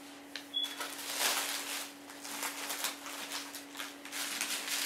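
Packing material rustling and crinkling in irregular bursts as it is handled and pulled from a shipping box, over a steady low hum.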